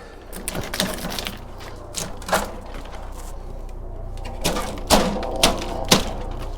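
Irregular clicks and knocks of metal and plastic server parts being handled and pried inside a computer chassis, about eight sharp strikes with the busiest cluster near the end.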